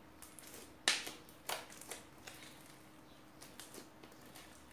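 Purple slime being kneaded and folded by hand, giving sticky crackles and popping air pockets. The loudest pop comes about a second in, another half a second later, then smaller crackles.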